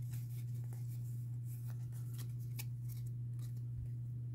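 Pokémon trading cards being slid and handled from a freshly opened booster pack, a scatter of faint short swishes and ticks, over a steady low hum.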